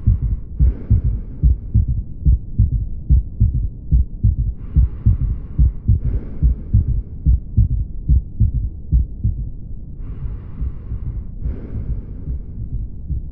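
Heart sounds heard through a stethoscope: a regular lub-dub beat of low thumps, about two a second, with the patient rolled onto the left side for cardiac auscultation. Soft breath sounds of breathing in and then out come through three times, about every five or six seconds.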